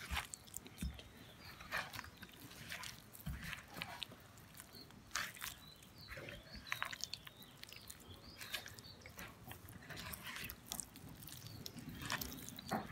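A hand squeezing and kneading raw chicken pieces in a thick marinade of flour, cornflour and spices in a bowl: faint, irregular wet squelches and smacks.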